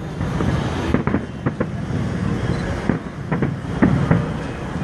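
Fireworks display going off: a string of sharp bangs and crackles at uneven intervals, several close together at times, over a steady low rumble.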